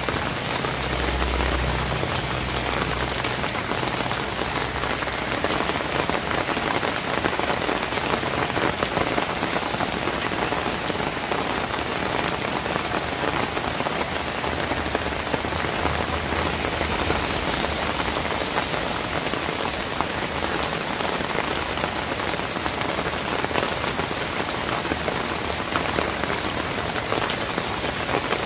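Steady rain falling, an even dense patter that doesn't let up, with a brief low rumble about a second in.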